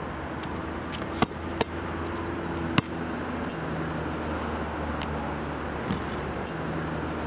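Steady low rumble of street traffic, with a few sharp knocks: two about a second in and one near three seconds, then fainter ones later.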